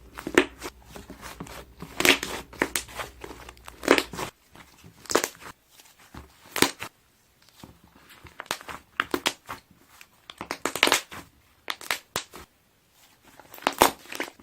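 Air-filled slime being pressed, its trapped air bubbles popping in irregular clusters of sharp pops and crackles.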